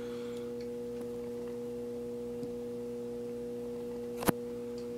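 A steady low hum, one pitch with a few overtones, with a single sharp click about four seconds in.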